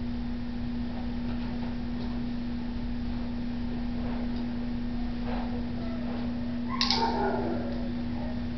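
A steady low hum, faint footsteps on a hard floor around the middle, and one short vocal sound about seven seconds in, the loudest moment.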